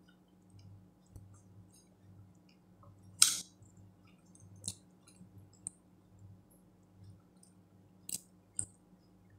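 Close-up eating sounds of a person eating rice and vegetables with her fingers: quiet chewing and wet mouth smacks, with one louder sharp smack about three seconds in and a few smaller ones near the end.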